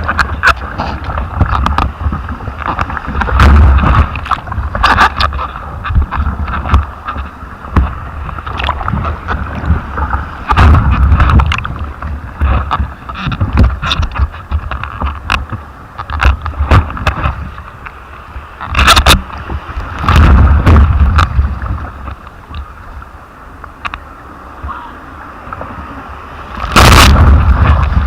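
Sea water sloshing and gurgling around the microphone, with gusts of wind buffeting it in loud, low rumbles several times, and scattered clicks.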